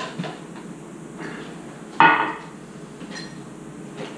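A metal flour sifter worked over a stainless steel mixing bowl: faint rasping and small clicks, then one loud ringing metal clank about two seconds in as the sifter knocks against the bowl.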